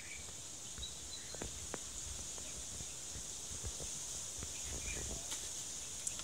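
Outdoor bush ambience: a steady high-pitched insect hiss, with a few faint bird chirps and scattered soft clicks.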